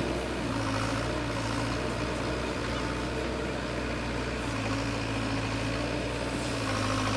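Heavy machine's diesel engine running steadily at low revs, a low, even hum.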